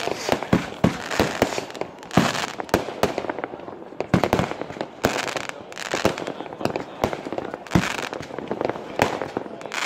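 Fireworks and firecrackers going off: a dense, irregular string of sharp bangs and crackles with stretches of hiss between them.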